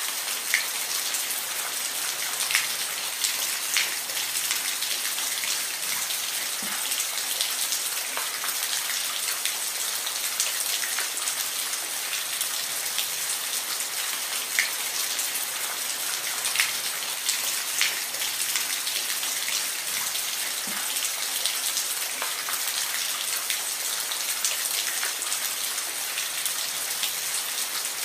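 Steady rain falling, a dense high hiss with scattered louder individual drops ticking on a surface.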